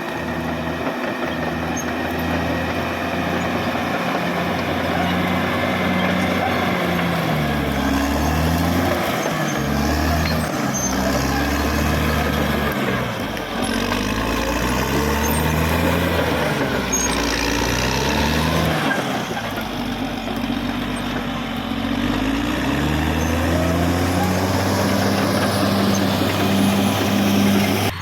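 Caterpillar D6R XL bulldozer's diesel engine working hard, its pitch rising and falling again and again as the load comes on and eases off, over a continuous noisy rattle of the running machine.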